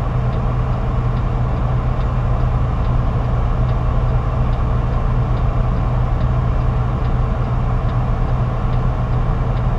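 Semi-truck's diesel engine running steadily while the truck rolls slowly, heard from inside the cab as a constant low drone.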